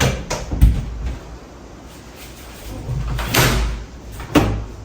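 Windows being pulled shut: a few quick knocks and thuds, then a louder bang near the end.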